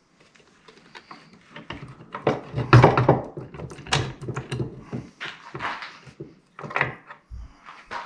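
Metal parts of a truck transfer case clinking and clunking as it is taken apart by hand, with irregular knocks and the loudest clatter about three seconds in.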